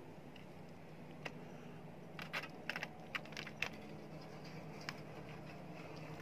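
Faint, scattered light clicks and crinkles of aluminium foil as fingers pick cooked salmon flesh off the bones, most of them between about two and four seconds in.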